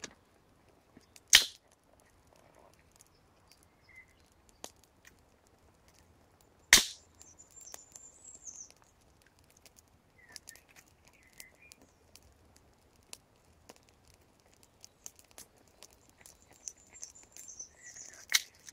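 Small kindling fire crackling with scattered light ticks and two sharp, loud pops, one about a second and a half in and one near seven seconds in. Birds chirp in the background, most plainly about seven seconds in and near the end.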